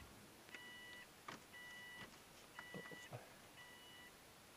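Subaru Baja's in-cabin warning chime beeping steadily after the ignition is switched on, one half-second beep about every second, with a few faint clicks.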